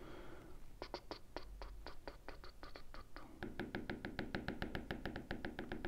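Light, quick taps of a stylus on a tablet screen. They come irregularly at first, then from about three seconds in as a fast, even run of about seven a second, over a faint steady tone.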